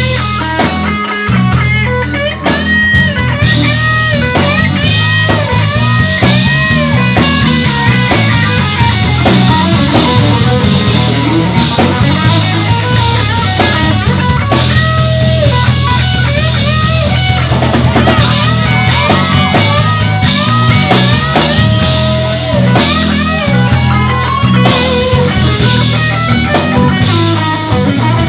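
Live band playing: an electric guitar lead with bent, sliding notes over electric bass and drum kit.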